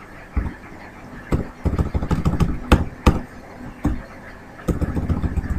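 Computer keyboard keystrokes: single key taps and short, quick runs of keys, irregularly spaced.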